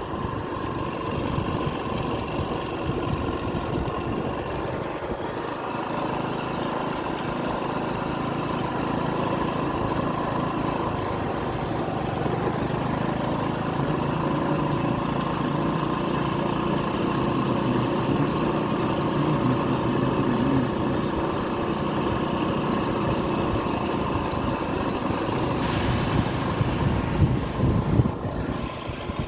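Motor scooter's engine running steadily while riding, heard with road and wind noise, with a brief louder rush of noise near the end.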